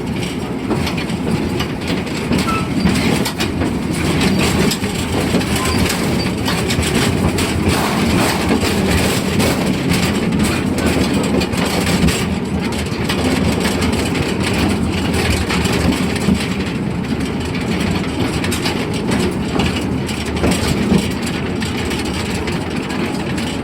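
Narrow-gauge forest railway passenger car rolling along the track behind the Amamiya No. 21 steam locomotive, heard from aboard: a steady low rumble of wheels on rail with continual rattling and clicking of the car.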